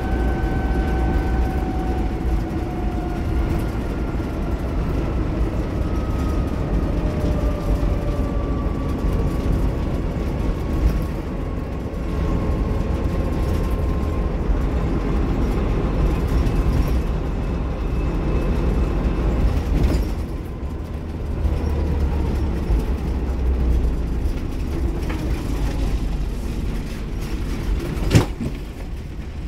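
Bristol RELH6L coach's rear-mounted Leyland O.680 six-cylinder diesel engine running under way, heard from inside the saloon as a steady rumble. A whine slowly falls in pitch over the first half, and there is one sharp knock near the end.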